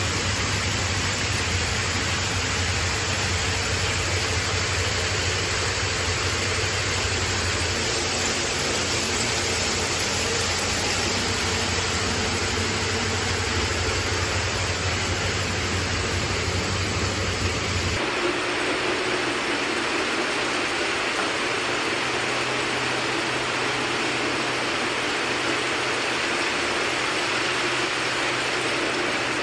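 Steady mechanical din of shoelace braiding machines running. About two-thirds of the way through it changes abruptly from a deep hum under the noise to a brighter, hissier clatter.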